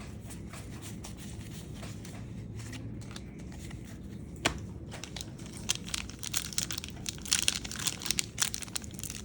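Trading card pack wrapper being torn open and crinkled. A single sharp click comes about halfway through, and the crinkling is busiest in the last few seconds.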